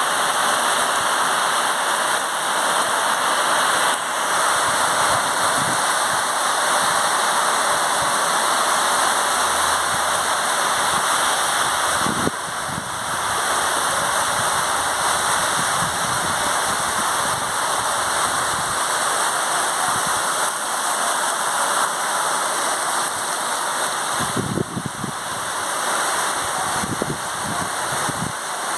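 Steady rain falling, an even hiss of drops that holds at the same level throughout.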